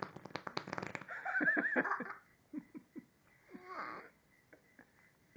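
A child blowing a raspberry against a bare stomach: a wet, buzzing fart-like noise in the first second, followed by a high wavering squeal and a few short bursts of giggling.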